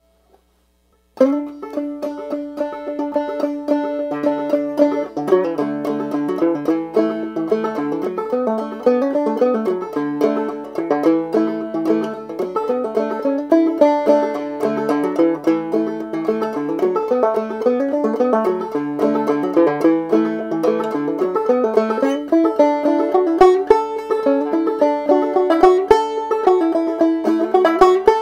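Solo banjo playing an old-time fiddle tune clawhammer style, starting about a second in with a quick, steady run of plucked notes and brushed strums.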